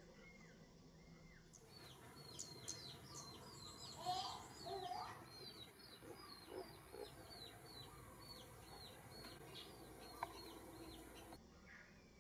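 A bird chirping over and over, a quick hooked chirp about three times a second, faint, with a few lower short squeaks around four seconds in.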